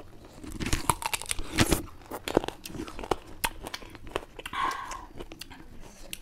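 People biting into and sucking on raw green lemon wedges close to the microphone, with a string of sharp wet mouth clicks, smacks and bites.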